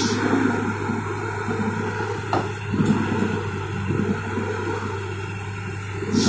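Diesel engines of heavy logging machinery running steadily with a constant low hum, under a rough rumble as a grapple-held bundle of logs drags over dirt.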